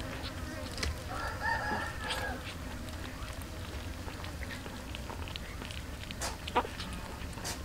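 Kittens eating from a metal tray: small clicks and smacks of food and teeth, with a sharp tap near the end. A rooster crows once, about a second in, for about a second.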